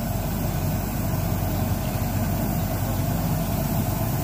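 Swaraj combine harvester's diesel engine running steadily as the machine moves slowly along at low speed.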